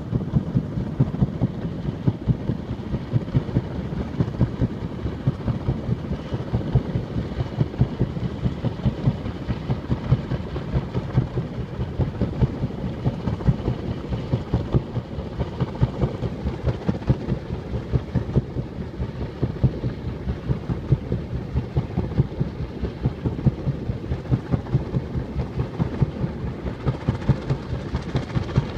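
Low engine-like rumble with a steady, fast pulsing beat that runs on without a break.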